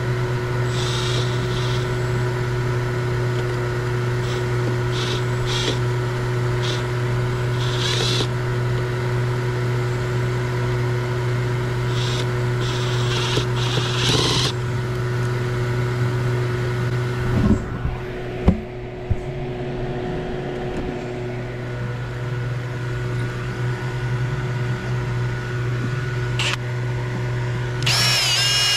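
A steady low mechanical hum throughout, with several short bursts from a small cordless driver worked at the pool's steel wall in the first half and a few knocks a little past halfway. Near the end a cordless drill starts with a rising whine as it begins boring a hole in the steel wall panel.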